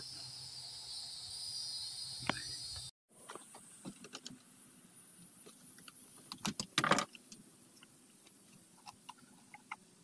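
Small clicks and knocks of hands handling the plastic and metal parts of a Husqvarna 324L trimmer's engine and fuel system, loudest in a quick cluster about two-thirds of the way through. Earlier there is a steady background hiss with a single click.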